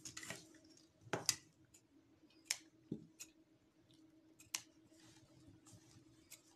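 Scissors snipping loose threads at the sewing machine after the seam is backstitched: a handful of short, sharp snips spaced about a second apart, over a faint steady hum.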